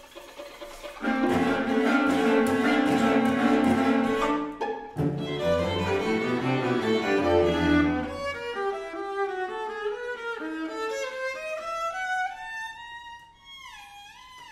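String quartet (two violins, viola and cello) playing contemporary concert music: after a quiet opening, a loud full-ensemble passage of held, dense chords comes in about a second in and breaks off about halfway, then the parts move in separate lines and thin out to softer, high sliding notes near the end.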